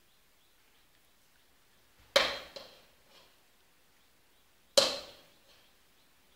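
Two sudden sharp knocks about two and a half seconds apart, each dying away within half a second; the first is followed closely by a smaller one.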